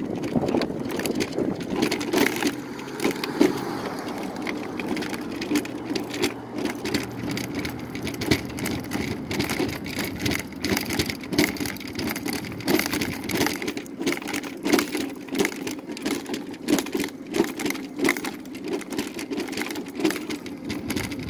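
Mobility scooter rolling along a concrete sidewalk: a steady motor hum under frequent, irregular clunks and rattles as the wheels run over the slab joints and cracks.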